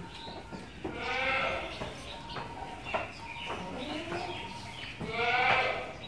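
Goats bleating in a shed: two long, wavering bleats, one about a second in and one near the end, with fainter calls between.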